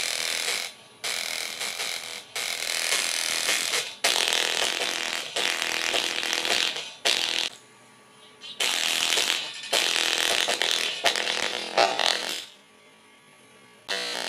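Small 2-watt speaker driver, with a torn cone, overdriven by about 50 watts from a stereo. It plays music as harsh, distorted buzzing in loud bursts that cut out briefly several times and drop away for over a second near the end.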